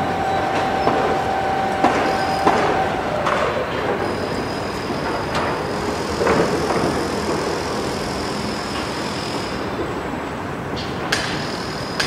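Construction site din: steady machinery noise with scattered metallic knocks and clanks, a high steady whine through the middle, and hammer blows starting near the end.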